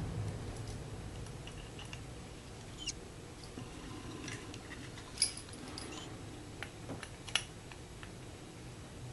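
Small plastic clicks and ticks as the coupler assembly at the end of a model freight car is handled and fitted together, over faint room noise. The sharpest clicks come a little past halfway, two of them about two seconds apart.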